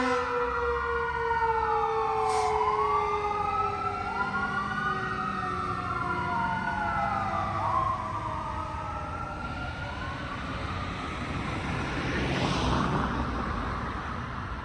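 Fire truck's electronic siren wailing, its pitch rising and falling every couple of seconds, with a lower Q2B mechanical siren tone sliding slowly downward as it winds down over the first several seconds. A louder rush of noise swells about twelve seconds in.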